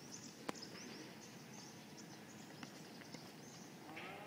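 Faint outdoor background of birds chirping continuously, with one sharp knock about half a second in and a couple of fainter ticks later.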